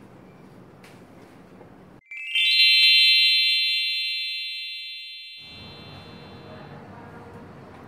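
A bright chime sound effect about two seconds in: a quick rising run of bell-like tones that ring together and fade away over about four seconds. Faint room background comes before and after it.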